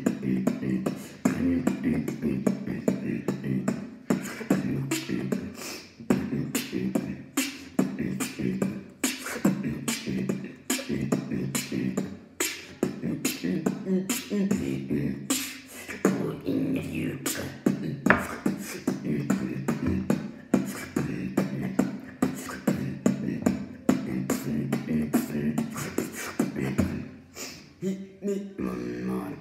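Solo beatboxing: a steady, fast beat of mouth-made kick, snare and hi-hat sounds, with a pitched vocal line held underneath.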